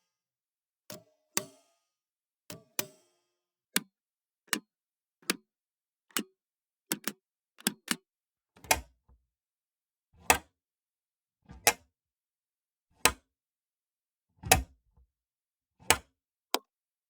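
Pushbutton switches being pressed, giving a series of separate sharp clicks with short pauses between. Some come in quick press-and-release pairs. The later presses, from about halfway in, land with a deeper, heavier click.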